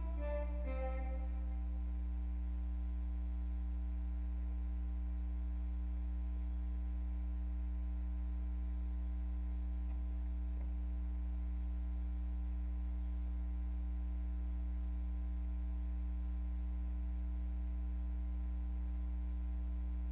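Instrumental music: a few melody notes end about two seconds in, then a steady low drone holds on.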